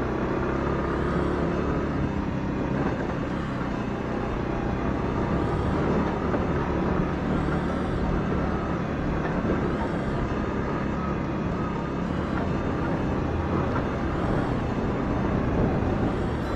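Moped's small engine running steadily while riding.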